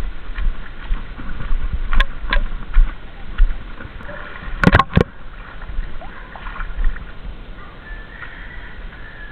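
Wading through brush and shallow creek water: water sloshing and plants rustling, with scattered knocks and a quick cluster of sharp clicks about halfway through.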